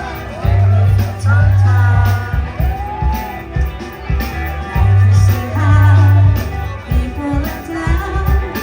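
Rock band playing live, with a wavering sung melody line over steady bass and drum hits.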